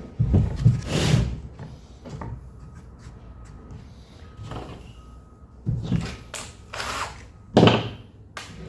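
A few short knocks and scrapes of a timber workpiece being handled and worked on a bench, the loudest about a second in and near the end.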